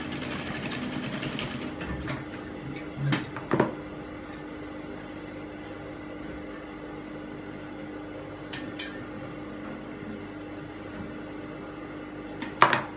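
A sewing machine stitches a seam for about the first two seconds, then stops. A steady hum continues, broken by a few sharp clicks and snips as scissors trim the threads. The loudest click comes near the end.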